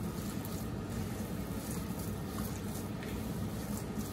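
Hand kneading raw minced mutton in a plastic bowl: soft, irregular squishing of the meat, over a steady low hum.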